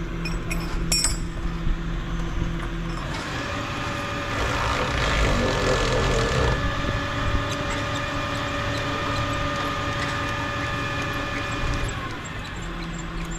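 Power tool running steadily for about eight seconds: a whine that starts a few seconds in and cuts off near the end, over a low, steady engine hum.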